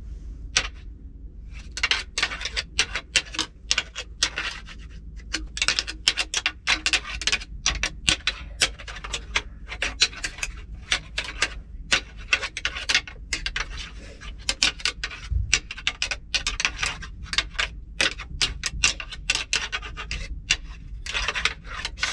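Deer antlers being rattled together by hand: irregular bursts of sharp clacks and grinding scrapes, the rattling call hunters use to imitate bucks sparring and draw a buck in.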